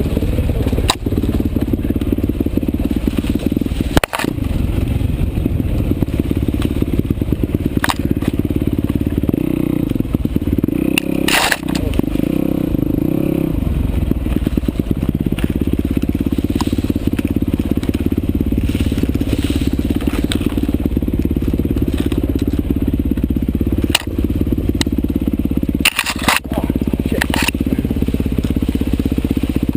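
Off-road motorcycle engine running steadily while being ridden, picking up for a couple of seconds near the middle, with a few sharp knocks scattered through.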